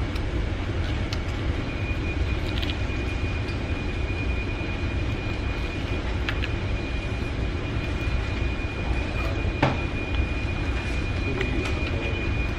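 Fast-food restaurant room noise: a steady low rumble, with a thin high steady tone that comes in about two seconds in and holds until near the end, and a couple of faint clicks.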